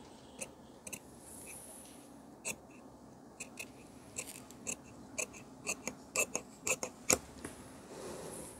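Tailor's shears snipping through blouse fabric on a cutting mat: a few scattered snips at first, then a quicker run of sharp snips about two a second, the loudest a little before the end.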